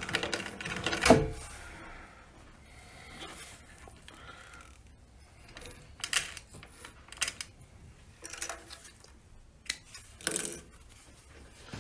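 Singer 111W walking-foot sewing machine running its last few stitches through leather and stopping with a knock about a second in. Then scattered light rustles and clicks as the stitched leather piece is pulled from under the presser foot and its thread handled.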